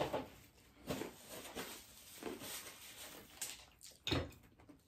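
Close-up eating sounds of crispy fried chicken being bitten and chewed: scattered soft crunches and mouth smacks, with a sharper click about four seconds in.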